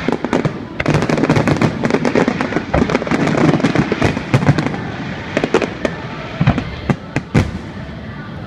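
Fireworks display: a dense run of bangs and crackling for the first few seconds, thinning out to a few separate booms near the end.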